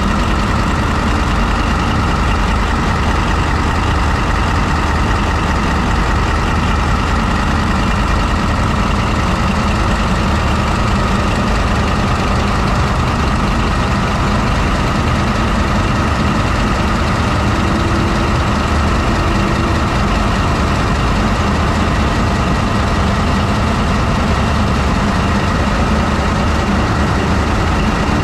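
MTU Friedrichshafen 20V4000 twenty-cylinder diesel prime mover of a CRRC SDA1 locomotive running steadily, heard close up inside the engine compartment as a loud, even drone with a deep low hum.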